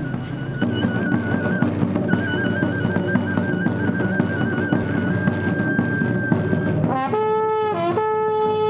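Traditional Holy Week trumpet and drum playing together: a high trumpet line wavering quickly between two notes, then held, over a steady drum roll. About seven seconds in, a louder, lower trumpet note comes in, dips briefly, and is held.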